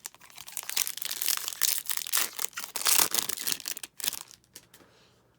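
A foil trading-card pack wrapper being torn open and crinkled, a dense crackling that dies away after about four seconds.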